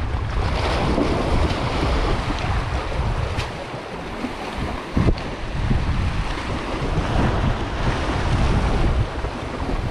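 Wind buffeting the microphone over the wash of surf, with a single sharp click about five seconds in.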